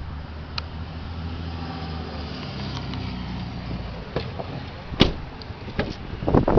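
Chevrolet Avalanche's 5.3-litre V8 idling with a steady low hum that fades out about three seconds in, followed by a few sharp clicks and louder knocks near the end.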